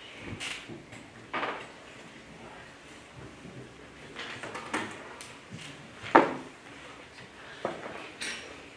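Scattered small knocks, clicks and rustles from pupils working at their desks in a quiet classroom. The loudest is a sharp knock about six seconds in.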